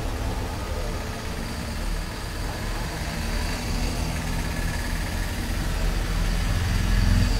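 A vehicle engine idling: a steady low hum that swells slightly near the end.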